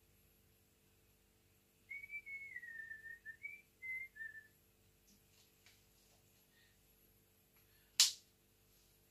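A person whistling a short tune of a few notes, then faint light ticks and, near the end, one sharp knock.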